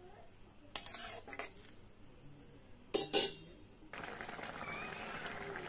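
A metal spatula knocks and scrapes against a metal wok a few times, loudest near the three-second mark. From about four seconds in, a watery potato and eggplant curry bubbles steadily as it comes to the boil.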